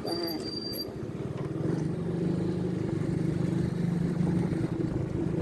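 Vehicle engine running, growing louder about two seconds in, with a brief thin high tone at the very start.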